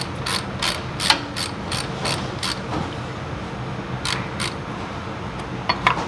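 Socket ratchet wrench clicking in quick, even strokes, about three a second, backing out a bolt on a Ford 1700 tractor's rear brake cover. The strokes stop about two and a half seconds in, with two more a little after four seconds and a couple of small metal clicks near the end.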